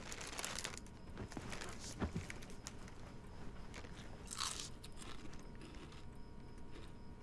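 Faint, irregular crunching and crackling, with a louder burst about four and a half seconds in.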